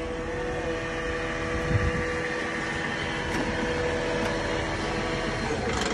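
Recycling truck engine idling close by, a steady hum with a constant whine, and a dull thump about two seconds in.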